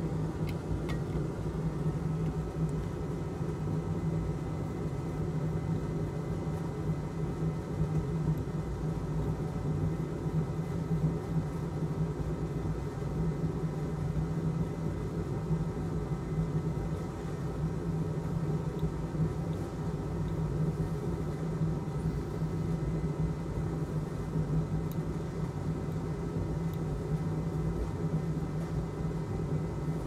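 Steady low mechanical hum, like a fan or small motor running.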